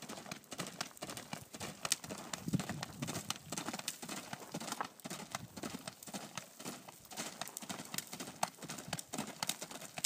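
Chestnut Quarter Horse mare cantering on packed dirt, her hoofbeats landing in a running series of dull thuds.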